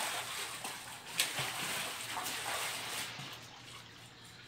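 Pool water splashing and sloshing as a child scrambles onto an inflatable pool float, with one sharp slap about a second in. The splashing dies away over the last second or so.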